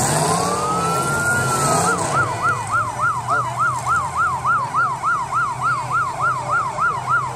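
Electronic siren: a slow rising wail, then about two seconds in it switches to a fast yelp of roughly three cycles a second. The derby cars' engines run underneath.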